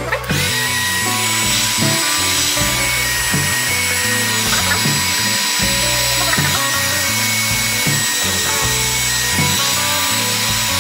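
Green Tools electric heat gun blowing, a steady rushing hiss of its fan and hot air that starts abruptly at the beginning. Background music plays underneath.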